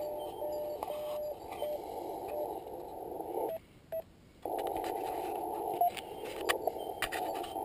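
Yaesu FT-817ND HF transceiver's receiver audio: band hiss through a narrow CW passband, with a steady-pitched Morse code tone keying a few dashes in the first two seconds. The audio cuts out for about a second midway, then the hiss returns with a few sharp clicks near the end.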